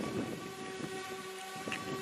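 Multirotor drone's propellers humming steadily, an even whine over a noisy rush.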